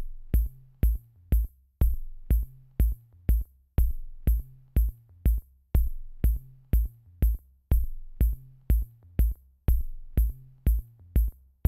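Electronic intro music: a steady beat of sharp hits, about two a second, over a low bass line.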